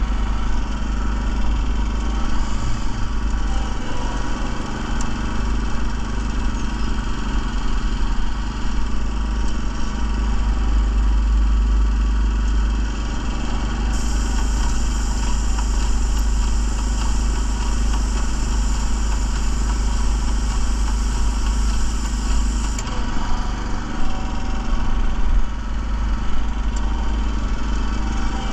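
Walk-behind parking-lot line striper's small gasoline engine running steadily. About halfway through, a high hiss of paint spraying from the striper's gun starts suddenly and lasts about nine seconds as a stripe is laid down, then cuts off.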